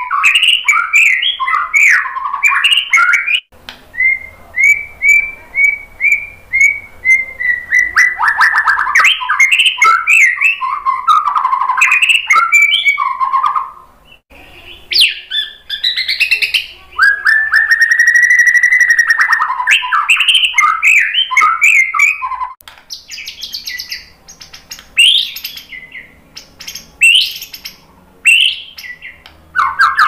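Male white-rumped shama singing a loud, varied song of whistled phrases, trills and quick chattering notes, its repertoire of learned phrases (isian). Partway in comes a run of about eight repeated falling whistles, and later a long arching whistle.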